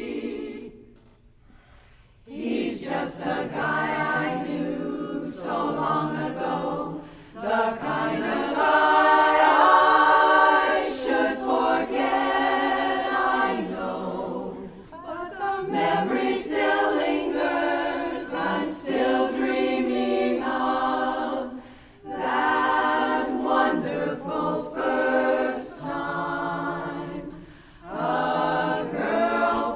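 Women's barbershop chorus singing a cappella in four-part close harmony, in sustained phrases with brief breaths between them and a short pause about a second in.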